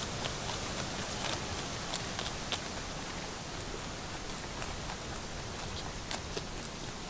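Rabbits chewing on cabbage wedges: many short, irregular crunching clicks over a steady background hiss.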